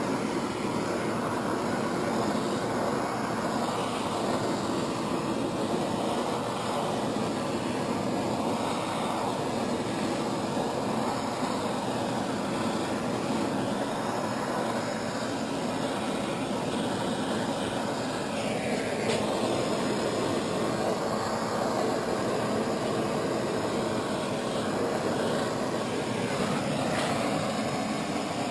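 Handheld propane torch burning steadily, its flame a constant rushing noise as it is played over a plastic sheet to heat it to the point of melting.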